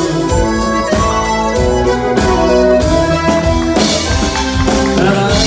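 Live band playing an instrumental break in an upbeat Irish-style song, with accordion and fiddle carrying the tune over a steady drum beat and electric guitar.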